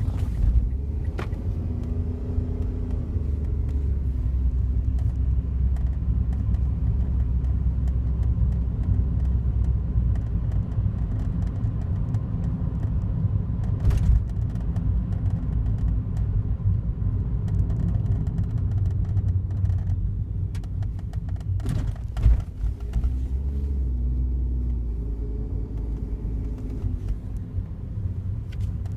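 Daihatsu Wake kei car running, a steady low rumble with the engine's pitch rising and falling twice. A couple of sharp knocks stand out, about halfway through and again a little after.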